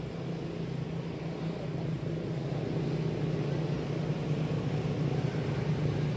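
A steady low engine drone that grows gradually a little louder.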